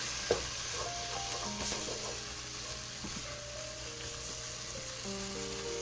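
Onion-tomato masala sizzling in a hot pot with a steady hiss, and a short knock of a spoon about a third of a second in, over soft background music.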